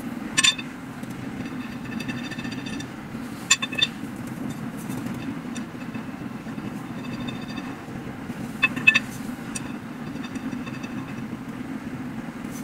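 Long white metal tubes of a flat-pack frame clinking together as they are handled, three short knocks that ring briefly, over a steady low hum.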